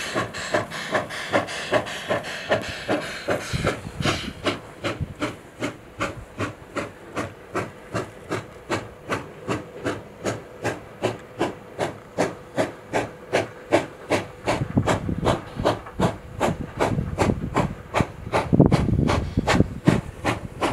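Steam locomotive working a train with a steady exhaust beat, about three chuffs a second. A hiss of steam over the beats stops about four seconds in. In the last few seconds a low rumble of wind buffeting the microphone rises over the chuffing.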